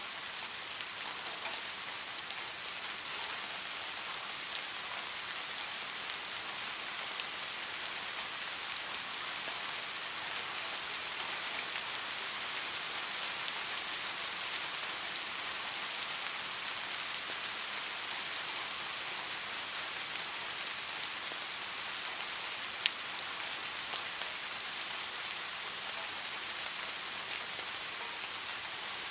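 Steady rain falling, a continuous hiss with scattered individual drop ticks and one sharper tick a little after the twenty-second mark.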